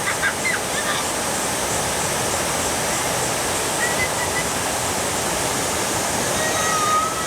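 Small river waterfall with water rushing steadily over it, a dense, even sound of falling water with no break.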